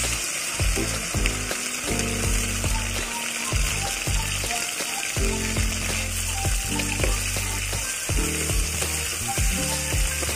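Pieces of snake meat frying in hot oil in a wok, a steady, even sizzle, with music playing underneath.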